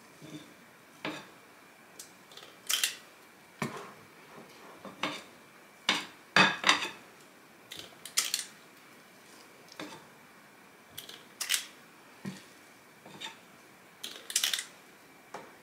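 Large metal cookie scoop working through thick muffin batter: its squeeze handle clicking as it releases and the scoop scraping against a glass mixing bowl, a string of short, irregular clicks and scrapes about every second.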